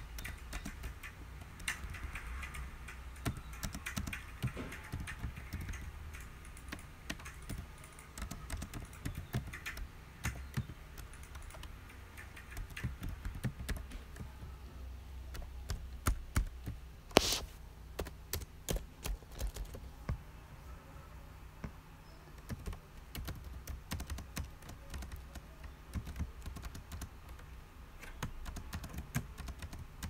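Computer keyboard typing: irregular runs of keystrokes that pause and resume, over a low background hum. One much louder, sharper click comes a little past halfway.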